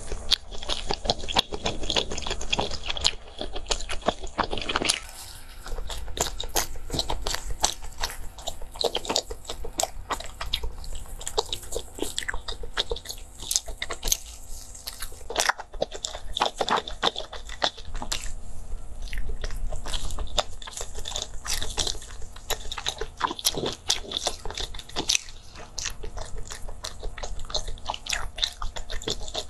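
Close-miked mouth sounds of a person biting and chewing soft layered sponge-cake sandwiches. The bites, chews and smacks come thick and fast, a dense run of short clicks.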